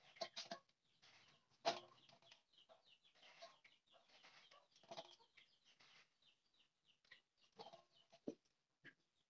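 Faint, scattered short sounds of a vegetable being cut against an upright boti blade, with pieces dropping into a steel bowl; among them are faint short calls, the sharpest sound coming about two seconds in.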